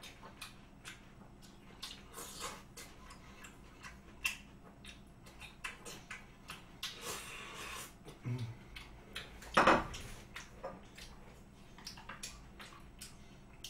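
Close-up eating sounds of raw beef yukhoe: wet chewing and mouth smacks, with light clicks of chopsticks against a plate. There is a short closed-mouth hum a little past eight seconds in, and a louder mouth noise about a second later.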